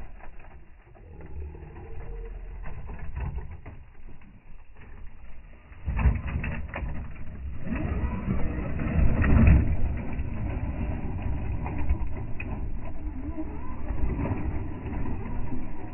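Pitched-down slow-motion field audio: deep rumbling with slow warbling glides in pitch. It swells about six seconds in and is loudest around nine seconds.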